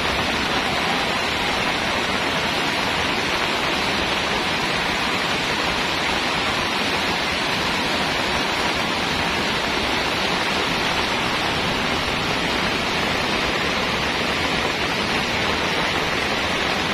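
Heavy downpour of rain, a loud, steady, dense hiss with no let-up.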